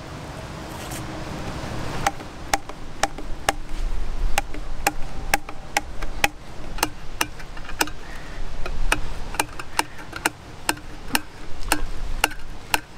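A Victorinox Swiss Army knife's can opener levering around the rim of a large steel tin can, each stroke cutting into the lid with a sharp click, about twice a second.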